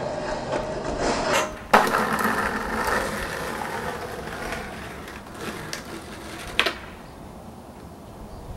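Skateboard coming off a metal handrail grind and landing with one sharp clack a little under two seconds in, then its urethane wheels rolling on rough asphalt, slowly dying away. A smaller click comes near the end.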